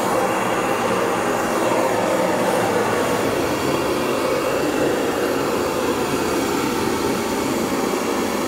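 Hose-fed gas torch burning with a steady hiss as its open flame is played over steel.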